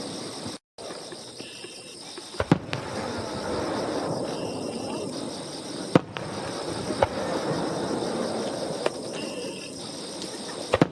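Aerial fireworks of a starmine display bursting: a handful of sharp bangs, two close together about two and a half seconds in, then single ones around six and seven seconds and another near the end, over a steady background din.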